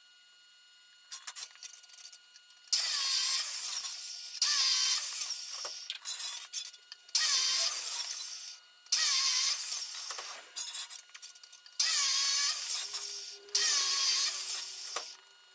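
A handheld power tool running in six short bursts of about a second and a half each, its pitch wavering within each burst, with brief pauses between.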